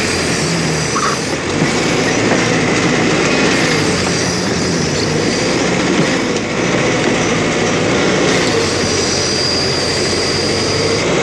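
Kobelco SK200-8 hydraulic excavator running close by, its diesel engine loud and steady, with the clank and squeal of its steel crawler tracks as it moves. A thin high whine comes and goes over it.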